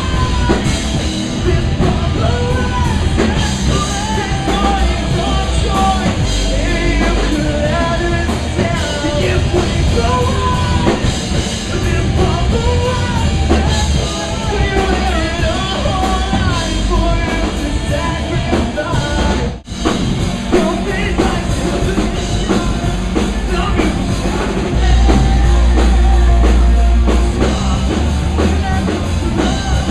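Live punk-rock band playing a song with singing, drum kit and amplified instruments, loud and continuous, with a momentary break a little under two-thirds of the way through.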